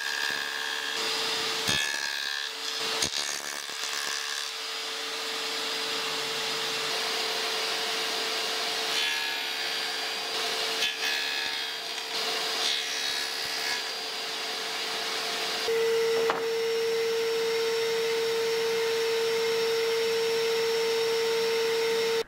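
Ridgid table saw with a dado blade stack cutting rough tenons in African mahogany: the saw's motor hums steadily while the stacked blades chew through the wood on each pass. About two-thirds of the way in the hum becomes louder and more even.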